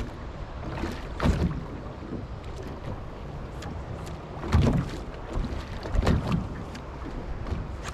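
Wind buffeting the microphone on a small boat's bow on choppy water, with three louder surges: about a second in, midway, and just after six seconds.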